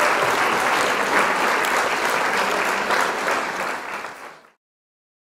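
Crowd applauding, a dense patter of many hands clapping that fades out and stops about four and a half seconds in.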